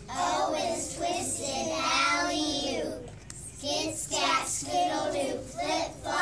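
A group of young children singing together, with a short break about halfway through.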